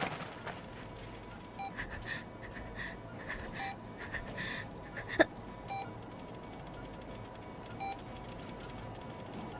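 Hospital heart monitor beeping about every two seconds, with a boy's heavy panting breaths between the beeps for the first few seconds and a single sharp click about five seconds in.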